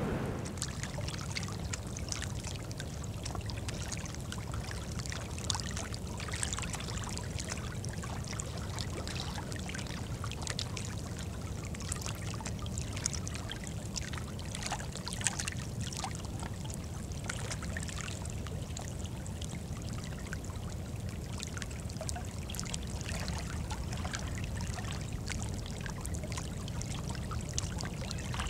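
Small waves on open estuary water lapping and splashing: a steady stream of little splashes over a low, even rumble.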